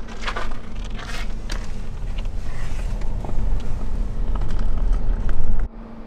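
Footsteps crunching in snow for the first second or so, over a steady low rumble that grows louder and then cuts off abruptly near the end.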